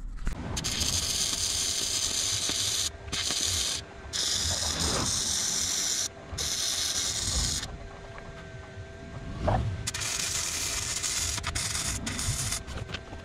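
Stick (arc) welding: the arc crackles and hisses in runs of a second or two, with short breaks as the weld is stopped and restarted.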